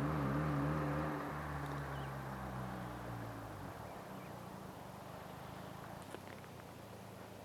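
Mazda RX-7 FC's naturally aspirated 13B two-rotor rotary engine, on a modified exhaust, running at a steady note that fades away over the first few seconds as the car moves off. After that only faint background noise with a few light clicks is left.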